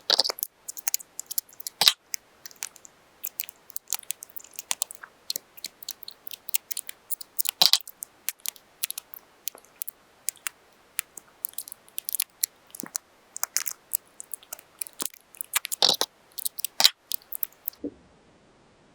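Paper being handled and crinkled at close range: a dense, irregular run of sharp crackles and clicks that stops near the end.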